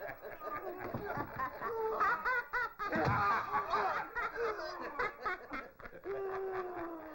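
Several people laughing in quick repeated bursts, jeering laughter rather than speech.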